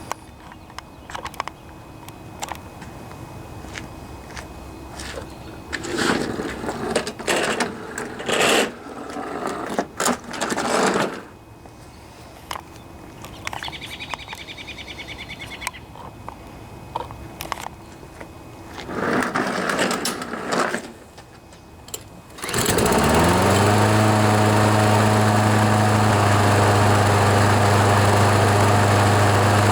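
Clatter and handling noises, then a Kohler XT675 lawnmower engine starts about three-quarters of the way in, picks up speed and settles into a steady run. It starts and keeps running with its carburetor slow jet freshly cleaned.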